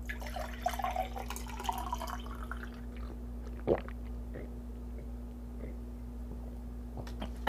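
Water poured from a bottle into a glass for a couple of seconds, then a short knock of the glass and quiet drinking, over a steady low hum.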